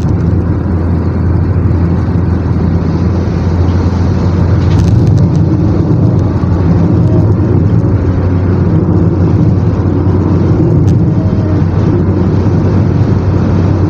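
Steady low road and engine rumble inside the cabin of a 2013 Ford Fiesta cruising at highway speed.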